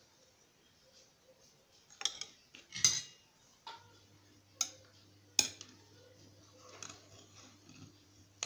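Kitchen utensils clattering and clicking: the cake knife set down and a metal cake server picked up and tapped against the cake plate, a few sharp clicks with the loudest about three seconds in. A low steady hum starts about four seconds in.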